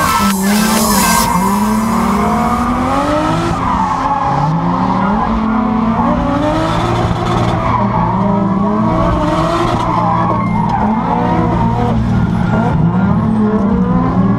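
Drift car heard from inside the cabin, its engine revving up and down again and again while the tyres squeal through a slide.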